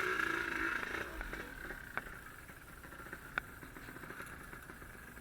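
Yamaha RD135 two-stroke motorcycle engine running under way, easing off after about the first second. Two sharp clicks are heard partway through.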